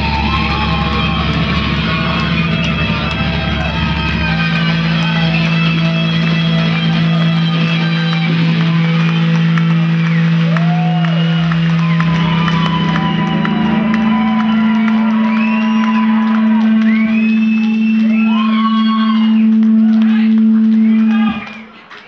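Live rock band with electric guitar playing out the end of a song on long held low chords that step up once partway through, with whoops and cheers from the crowd rising over it. The music stops abruptly near the end.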